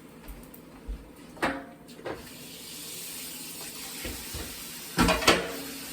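Kitchen tap running into a sink as a steady hiss from about halfway through, with knocks and clinks of dishes or utensils, the loudest a clatter near the end.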